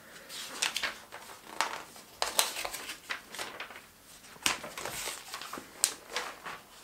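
Handling of the LEGO Typewriter model and its paper instruction booklet: a scattering of light, sharp clicks and soft rustles, irregularly spaced.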